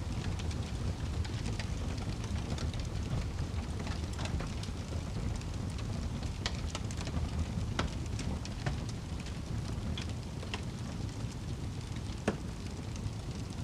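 Wood fire burning in a fireplace: a steady low rumble of flames with scattered sharp crackles and pops from the logs, one louder pop near the end.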